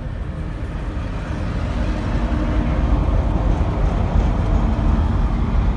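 Diesel locomotive pulling a passenger train into the station and passing close by: a deep engine rumble that grows louder over the first few seconds and then holds.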